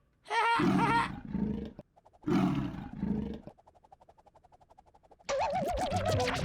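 Cartoon lion sound effect: two roars about two seconds apart, trailing into a faint pulsing rumble. A warbling sound effect starts near the end.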